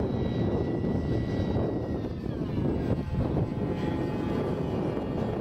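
Electric ducted-fan radio-controlled model jet flying past: a steady high whine that drops in pitch a little past two seconds in as it goes by. Heavy wind rumble on the microphone runs underneath.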